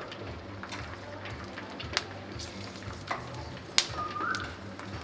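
Kitchen work clatter: a few sharp knocks of kitchenware over a steady low hum, with a short rising squeak just after the loudest knock.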